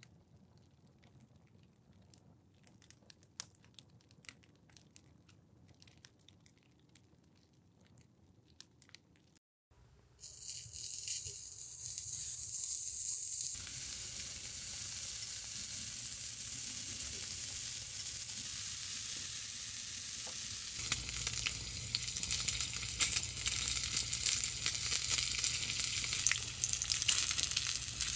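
Faint crackles from the small fire under the pan for the first ten seconds, then slices of pork belly sizzling in a hot miniature cast-iron pan. The hiss starts suddenly about ten seconds in and grows louder around twenty seconds in, as more pieces fry.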